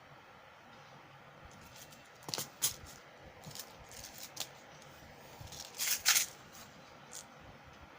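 Plastic packaging being handled and crinkled: irregular crackles and clicks beginning about two seconds in, the loudest cluster about six seconds in.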